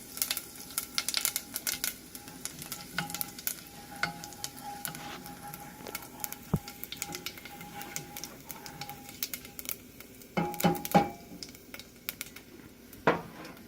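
Hot cooking oil sizzling and crackling in a pan while the contents are stirred, with a few louder knocks near the end.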